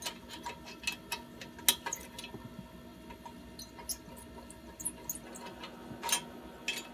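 Irregular light metallic clicks and taps of hands and a tool working a worn muffler clamp loose from the exhaust pipe, with the engine off.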